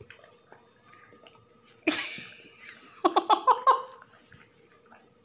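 A sudden breathy huff about two seconds in, then a short run of quick giggling pulses about a second later.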